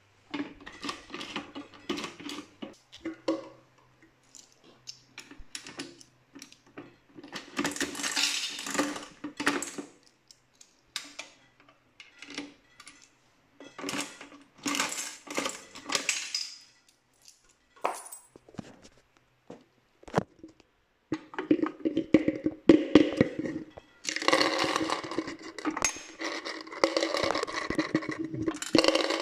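Coin-operated 20-cent candy vending machine in use: coins clinking, and the dispensing mechanism clicking and rattling. The clatter comes in several bouts with short gaps, and the longest and loudest bout runs through the last third.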